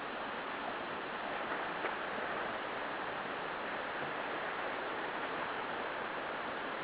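Steady rushing of mountain stream water, an even unbroken roar with no rise or fall.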